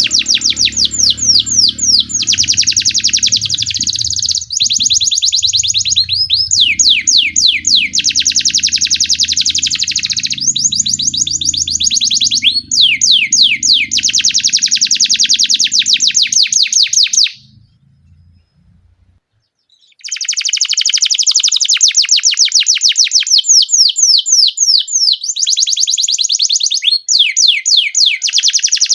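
Domestic canary singing long, fast rolling trills: strings of rapid repeated high notes in long phrases. The song breaks off for about two seconds two-thirds of the way in, then starts again.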